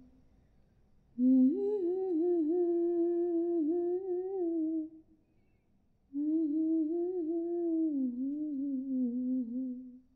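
A woman humming a slow, wavering tune without words, in two long phrases with a short pause between.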